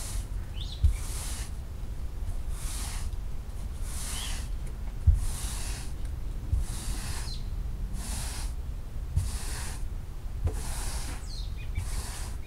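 Stiff-bristled scrub brush on a pole swishing back and forth over a wet, soapy rug, in steady strokes about once a second, with a dull thump about five seconds in.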